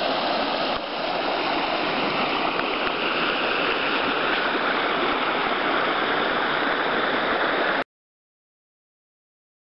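A small stream rushing and splashing over rocks in a low cascade, a steady, loud rush of water that cuts off suddenly near the end.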